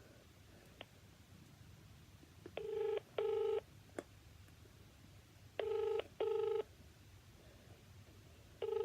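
Telephone ringback tone heard through a cordless phone's speaker: the Australian double ring, two short steady buzzes then a pause, repeating three times about three seconds apart while the called number rings unanswered.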